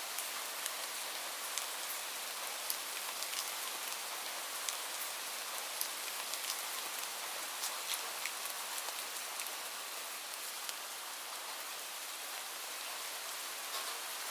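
Light rain falling steadily, a soft even hiss with the sharper ticks of single drops scattered through it, a few drops a second.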